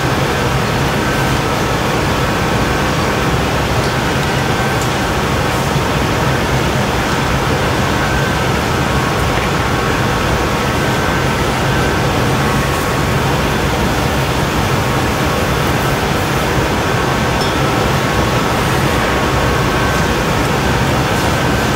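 Steady rushing roar with a low hum underneath: the gas burners and ventilation of a glassblowing hot shop running continuously.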